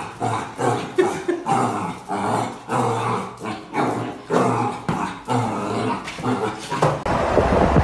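Puppy barking and growling at its own reflection in a mirror, in short repeated bursts about twice a second. Near the end it gives way to wind noise.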